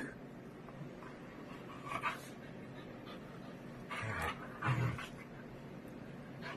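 A Siberian husky and a small terrier play-fighting on a bed. It is mostly quiet, apart from a few short dog noises: one about two seconds in and two more between four and five seconds in.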